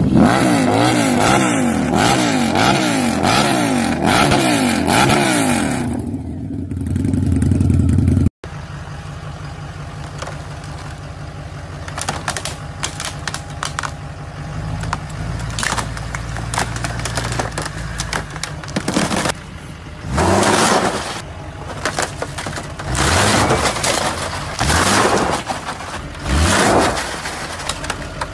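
A motorcycle engine revving hard in a burnout, its pitch rising and falling over and over before it drops away. After a cut, a pickup truck engine runs low with scattered cracks and clatter, then is revved in several short bursts near the end.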